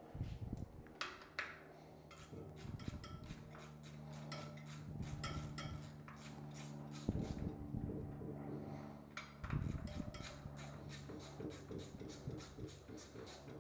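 Light metallic clicks and clinks of hand tools being handled during the final steps of a motocross front-wheel tire change, over a faint steady hum through the middle; the clicks come thickest about two thirds of the way in.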